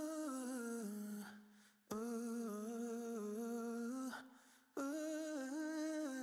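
Background song: a woman's voice humming a slow, wordless melody in three long phrases with short breaks between.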